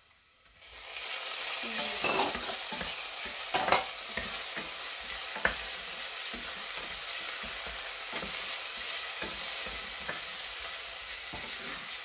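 Sliced pork sizzling in hot oil in a stainless steel pan. The sizzle starts just under a second in as the meat goes in, then holds steady, with a wooden spatula knocking and scraping against the pan as it is stirred.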